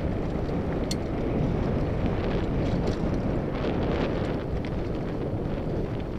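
Wind buffeting a helmet-mounted camera's microphone as a mountain bike rolls downhill over dirt, with steady tyre noise and a few sharp clicks and rattles from the bike.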